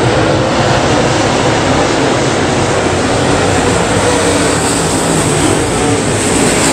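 A pack of dirt-track race cars running at speed around the oval, many engines at once making a loud, steady, blended noise.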